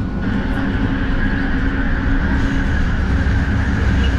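Metro train heard from inside the carriage, doors shut and pulling away from the station: a steady low rumble with a steady high whine above it.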